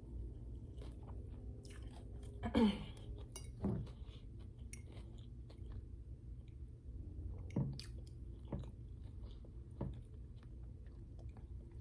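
Close-miked chewing of food, with wet mouth clicks and a few louder crunchy bites, and a short falling throat sound about two and a half seconds in.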